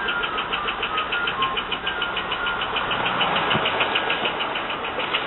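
Holden Commodore VU's LS1 5.7-litre V8 idling with a rapid, even knock, which the owner suspects is a rocker or other valvetrain part gone on the right bank; the oil light has also been coming on.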